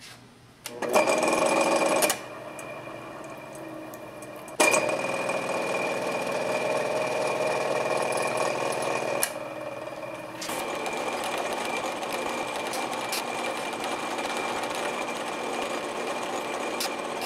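Vertical milling machine cutting aluminum flat bar: the spindle's high whine with the cutter's chatter. It runs briefly about a second in, again from about five seconds in, then settles into a steady cut from about ten seconds in, which is a light cleanup pass across the bar's face.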